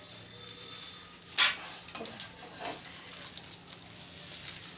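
Plastic bag of chana dal rustling as it is handled and set down: one sharp crinkle about a second and a half in, then a few softer rustles and light knocks.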